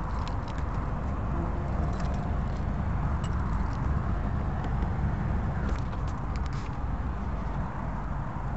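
Steady low rumble of vehicle engines, with a few light clicks.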